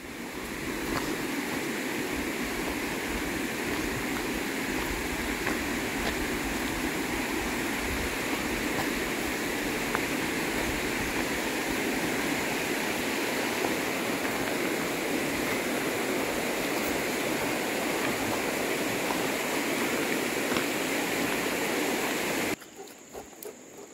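Water in a shallow, rocky creek flowing steadily, a continuous rushing sound. It fades in at the start and cuts off suddenly near the end.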